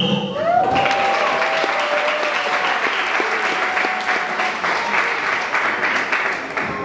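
Audience applauding, starting about a second in and fading near the end.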